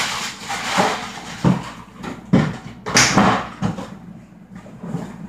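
Handling noise close to the microphone: a string of irregular knocks and rustles.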